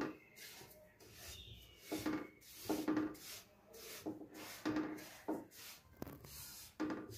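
Silicone spatula scraping and pushing through dry semolina in a non-stick wok, in repeated strokes about a second apart with quiet gaps between. The semolina is dry, before any ghee is added.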